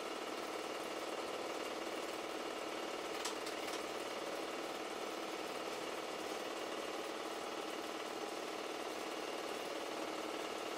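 Super 8 film projector running: a steady, fast mechanical clatter, with a single sharp click about three seconds in.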